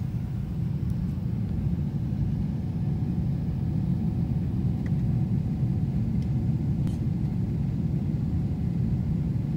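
Jet airliner cabin noise in flight: a steady low rumble of the engines and rushing air, heard from a window seat over the wing.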